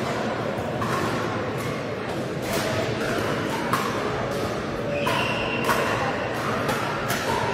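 Pickleball paddles striking plastic balls on several courts at once: sharp pops a few times a second at irregular spacing, over a steady hubbub of voices, echoing in a large sports hall.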